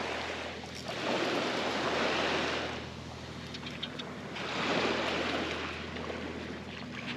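Small bay waves washing up on a sandy beach at the water's edge, the rush swelling and fading twice, about three and a half seconds apart.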